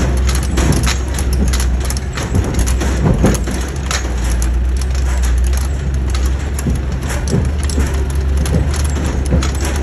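Heavy truck driving over a rough road: a steady low engine drone with frequent knocks and rattles.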